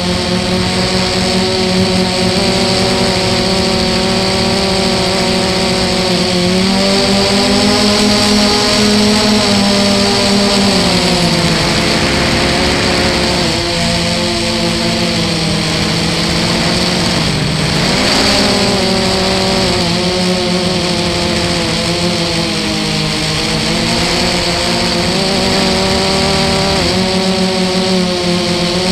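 Brushless motors and propellers of an Armattan FPV quadcopter heard through its onboard camera's microphone: a loud, steady multi-toned whine whose pitch climbs and dips with the throttle, sagging twice through the middle and climbing again near the end.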